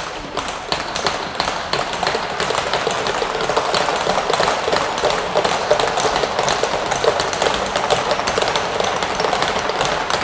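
Rink crowd noise: dense clapping and cheering that swells about three seconds in and stays loud.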